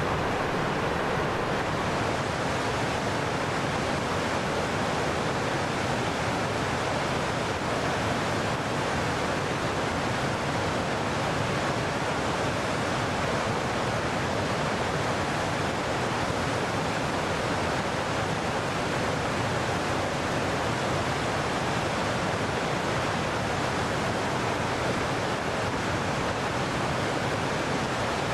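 Steady rush of a mountain waterfall and river, white water pouring over rocks.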